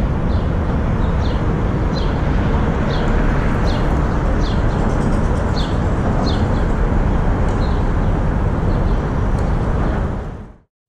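Steady low rumble of city traffic, with a small bird chirping over and over, short falling chirps one after another. The sound fades out near the end.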